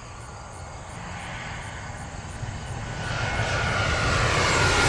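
Jet airliner approaching low overhead, its engine noise growing steadily louder. A high whine comes in about three seconds in.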